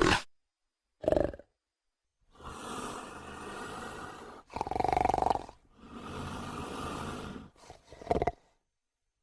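Designed Dromaeosaurus creature sound effects. Two short sharp calls open it, followed by long noisy growls broken by one louder call in the middle, and two more short calls near the end.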